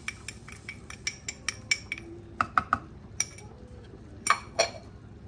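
A spoon clinking against kitchen containers: a quick run of light ringing taps, about five a second, then a few louder, spaced knocks and clinks.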